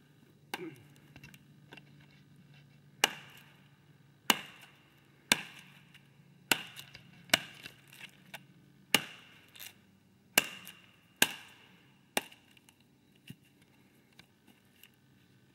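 Cold Steel kukri machete chopping a small tree trunk: about a dozen sharp blows of the blade into wood, spaced roughly a second apart.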